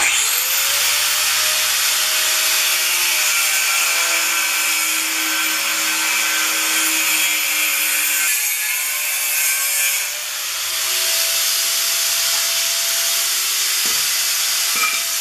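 A corded power tool cutting through square steel tubing, running steadily with a hissing cut. It spins up at the start, eases off briefly about ten seconds in, then cuts again.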